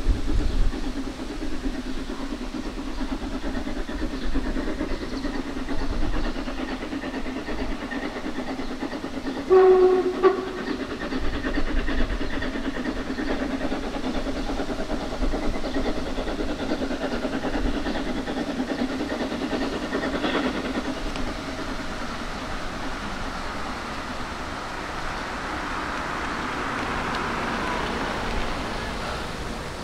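Narrow-gauge steam locomotive 99 4011 working its train, with steady exhaust beats from its chimney. It gives one short whistle blast about ten seconds in, and the rushing of steam grows toward the end as it comes closer.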